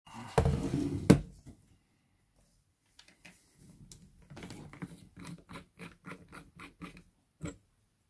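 Cordless drill being handled: a clatter and a sharp knock as it is lifted off the wooden table, then its keyless chuck ratcheting in a run of short clicks, about three a second, as it is hand-tightened on a wire stripping and twisting bit, with one last click near the end.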